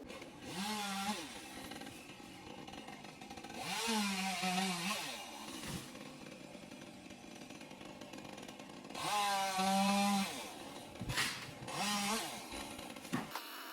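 Chainsaw revved up four times, each rev rising then falling in pitch, and dropping back to a lower steady running sound between revs.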